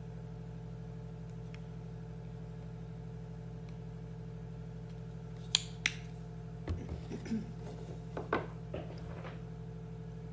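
Steady low hum of room tone, with two sharp clicks in quick succession a little past halfway, then a few seconds of light taps and rustles from handling things on a tabletop.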